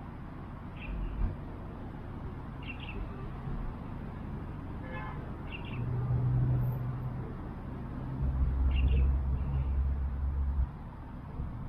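A bird's short, sharp calls repeat about every two to three seconds. Midway a low steady rumble rises and runs for about four seconds, and it is the loudest sound.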